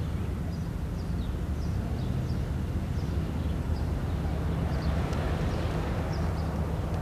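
A steady low rumble, with faint short high chirps recurring about once a second above it.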